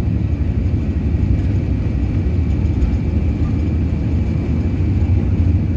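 Airbus airliner heard from inside the cabin while rolling on the ground: a steady, dense low rumble of jet engines and wheels, with a faint steady high whine above it.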